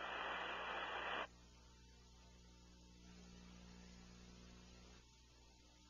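Radio-channel static hiss that cuts off suddenly about a second in, leaving a faint steady electrical mains hum.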